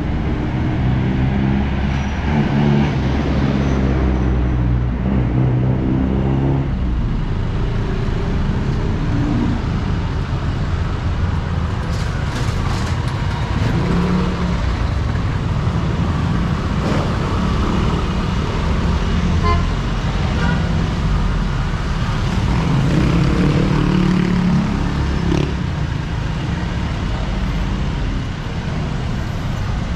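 Busy city street traffic: jeepneys, motorcycles and cars passing, with diesel engines running in a steady drone. The engine hum is strongest in the first seven seconds and swells again as more vehicles go by.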